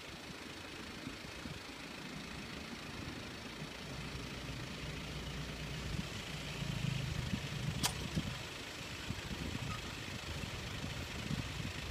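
Car engine idling with a low, steady rumble that swells now and then, and a single sharp click about eight seconds in.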